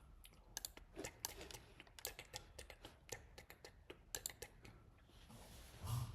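Faint, irregular keystrokes of typing on a computer keyboard, several clicks a second.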